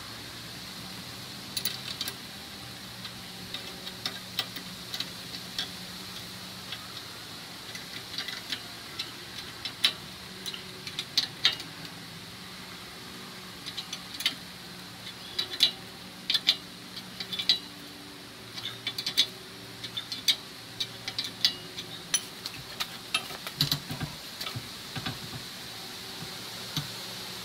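Steel combination wrench clicking and clinking on the nuts of a U-bolt clamp as they are turned and tightened: irregular sharp metallic clicks, sparse at first, then in quick clusters.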